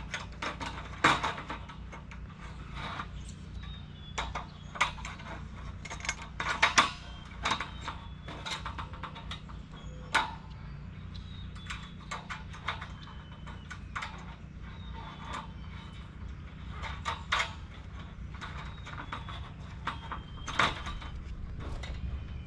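Galvanized steel raised-bed panels, corner pieces and bolts being fitted together by hand: irregular metallic clicks and clanks, some sharp, spread through the whole stretch.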